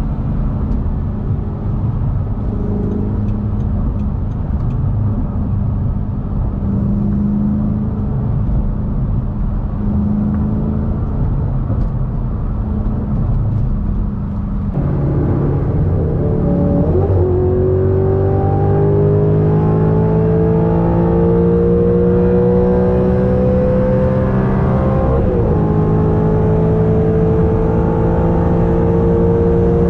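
2009 Audi R8's 4.2-litre V8 running at a steady cruise with road rumble, then about halfway it pulls hard under acceleration: a quick gear change, the engine note rising steadily, another upshift about five seconds before the end, and the note climbing again.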